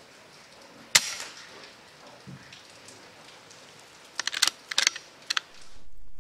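A single sharp crack about a second in, typical of a silenced .22 air rifle shot, then a quick run of sharp clicks a few seconds later. Near the end a steady low hum begins.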